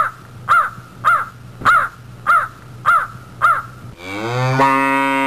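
A crow cawing seven times in a steady, even series, then a cow mooing in one long, low call that starts about four seconds in.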